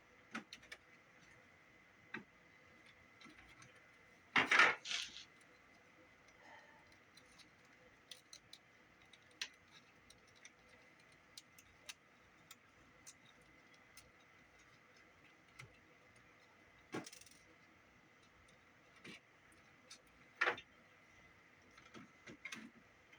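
Small plastic and metal parts of a cassette Walkman clicking and clattering as it is reassembled by hand, with scattered light clicks and two louder rattles, one about four and a half seconds in and one near the end.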